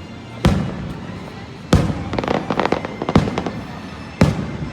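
Aerial fireworks bursting: a sharp bang about half a second in, another near two seconds followed by a run of rapid crackling, then two more bangs, one after three seconds and one after four.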